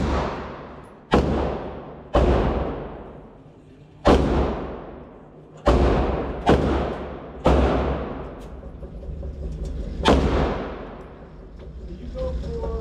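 Gunshots inside an indoor shooting range: about eight irregularly spaced shots, each followed by a long echoing tail.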